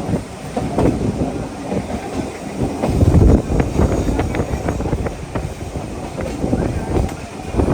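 Train running on the track: a steady rumble of wheels with many sharp clicks as they pass over rail joints, loudest about three seconds in.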